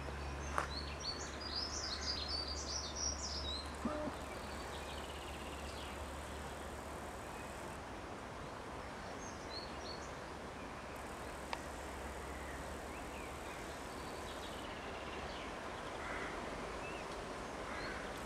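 Songbirds chirping in a busy burst in the first few seconds, then a few scattered calls, over steady outdoor background hiss with a faint low hum that fades out about three-quarters of the way through.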